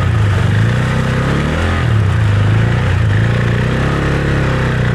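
Husqvarna Svartpilen 401's single-cylinder engine running at low speed on a rough trail, its note falling and rising with the throttle, dipping a little under two seconds in.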